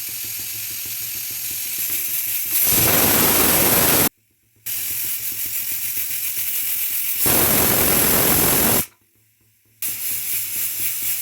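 Pressure cooker whistling as it vents steam: a steady hiss that twice swells into a louder rushing blast, with sudden silent breaks between them. Each whistle is the sign that the cooker has reached full pressure, and the whistles are counted to time the cooking.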